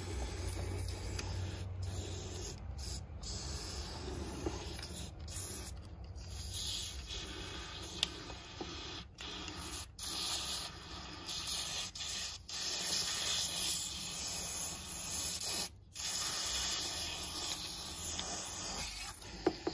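Aerosol cavity wax hissing out through a thin extension straw into a rusted body cavity, sprayed in a string of bursts with short breaks between them. The hiss is strongest in the second half.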